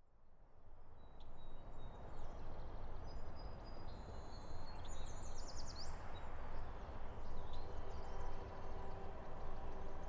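Woodland ambience fading in from silence: a steady rush of outdoor background noise with birds chirping, including a quick run of high chirps about halfway through.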